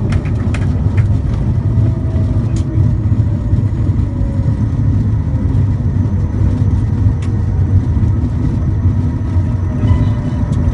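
Cockpit noise of a jet aircraft rolling out along the runway after landing: a loud, steady deep rumble of engines, airflow and wheels, with a few faint clicks in the first second.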